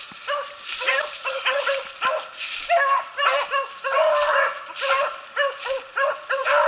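Several hunting beagles baying together, short arching yelps coming quickly and overlapping. This is the cry of beagles running a rabbit's trail.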